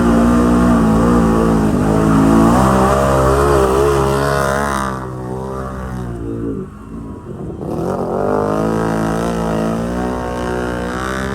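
ATV engine revving hard, its pitch rising and falling repeatedly. About halfway through the sound goes dull and quieter for a couple of seconds, then the revving picks up again.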